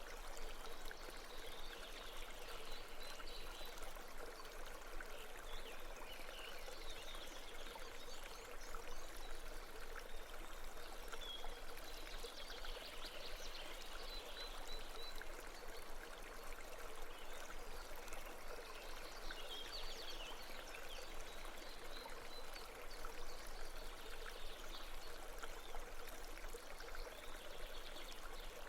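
Babbling brook: water flowing and trickling steadily over stones, with small bubbling splashes through it.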